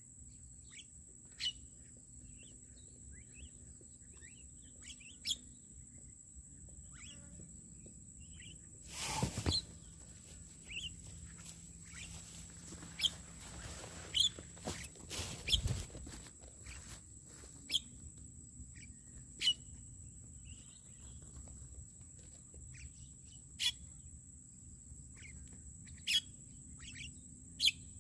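Birds giving short, separate chirps every few seconds over a steady high-pitched insect-like drone. A louder burst of noise comes about nine seconds in and again in the middle.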